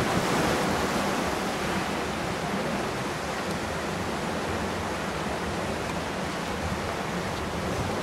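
Steady rush of churning whitewater around a river-rapids ride raft, easing a little in the first few seconds.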